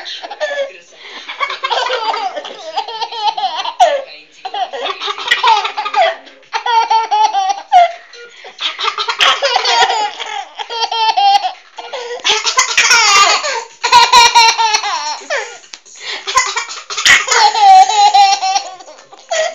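A young child laughing hard in repeated high-pitched fits with short breaks between them, laughter set off by sneezing.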